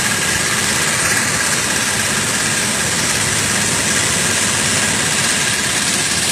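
Engine of a small wooden-decked river raft running steadily under way, an even drone with no change in speed.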